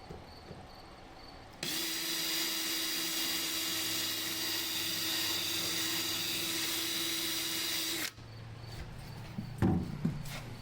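Power drill drilling out a rivet: it starts about a second and a half in, runs at a steady pitch for about six and a half seconds, then stops sharply. A few knocks follow near the end.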